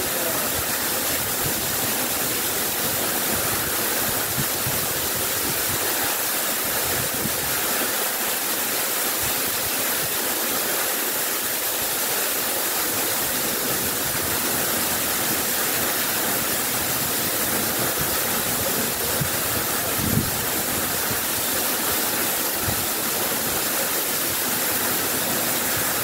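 A tall waterfall plunging into a rock pool, making a steady, even rushing. There is one brief low thump about three-quarters of the way through.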